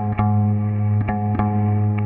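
Background music: electric guitar notes plucked over a steady low tone, with effects on the guitar.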